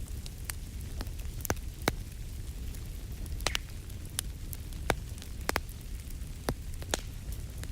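Wood fire crackling in a fireplace: irregular sharp pops, several a second at times, over a low steady rumble.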